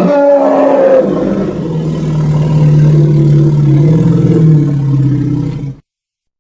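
An Allosaurus creature's roar sound effect: one long, deep call of about six seconds. It opens on a slightly falling higher tone, settles into a steady low pitch, and cuts off abruptly near the end. Most of this character's roars are made from elephant recordings.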